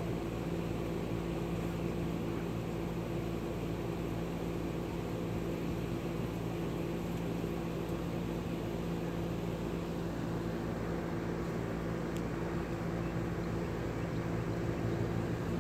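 Steady low machine hum with a constant drone that does not change in pitch or level.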